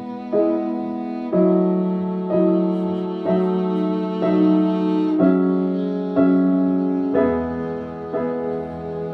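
Slow instrumental background music: piano notes struck about once a second, each fading away, over held chords.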